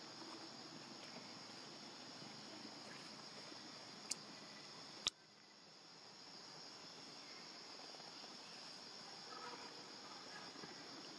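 Faint, steady high-pitched insect chorus, broken by two sharp clicks about four and five seconds in.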